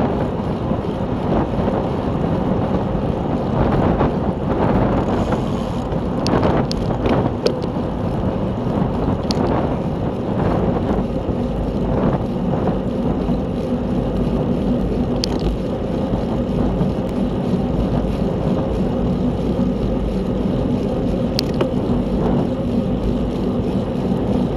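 Wind rushing over the microphone of a camera on a racing bicycle at speed, with steady rolling and drivetrain noise underneath. A few sharp clicks come through, a cluster about six to seven seconds in and single ones later.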